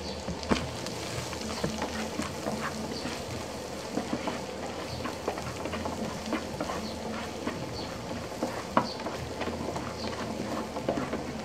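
Ginger and garlic frying in oil in a hot pan with a steady sizzle, stirred by a utensil that clicks against the pan many times, loudest about half a second in and again near the end.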